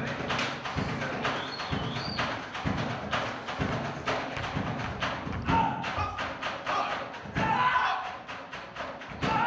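A troupe of performers thudding in a steady rhythm on a stage floor as they march with long staffs, about two or three thuds a second, over music.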